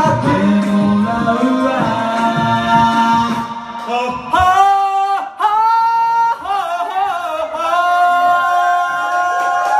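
Men singing karaoke through handheld microphones over a backing track. In the second half the accompaniment thins and one male voice holds long, high notes.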